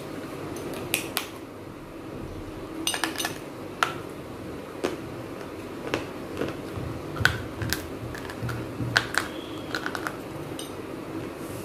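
Crisp, sharp crunches and cracks as small clay pots are bitten, chewed and snapped between the fingers, about fifteen at irregular intervals, over a steady low background hum.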